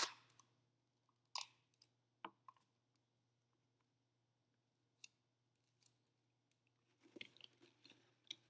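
Faint scattered ticks and rustles of clear sticky tape and cardboard toilet paper rolls being handled and pressed against a cardboard box, with a short burst of rustling about seven seconds in.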